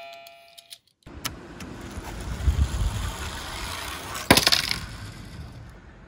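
A few electronic chime notes end within the first second; then a die-cast Tomica Nissan Fairlady Z police car runs down a slope, a rough rolling noise with a low rumble and one sharp knock about four seconds in.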